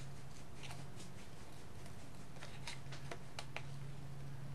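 Small scissors snipping through paper, a scatter of short, sharp cuts as a stamped image is fussy-cut. A steady low hum runs underneath.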